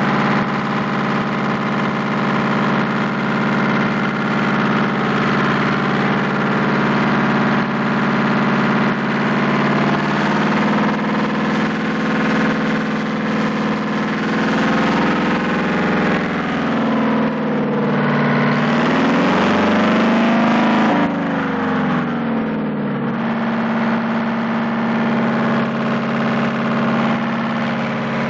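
Marine diesel generator set running steadily, its pitch wavering for several seconds in the middle before settling again. The engine is turning slightly slow, leaving the generator's output just short of its 208-volt target.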